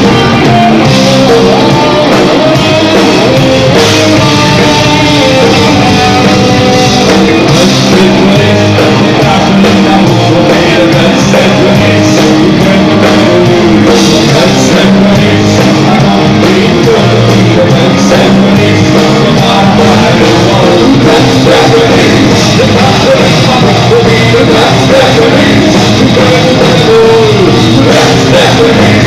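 Heavy metal band playing live: distorted electric guitars and a drum kit with a sung vocal over them, very loud and steady throughout.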